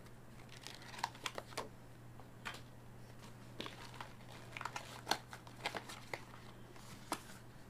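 Packaging of an in-ear monitor box being handled and opened, crinkling and rustling in irregular sharp crackles.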